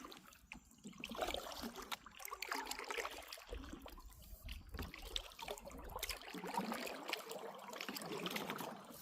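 Water splashing and trickling around a kayak as it is paddled through fast-moving creek water, in uneven bursts.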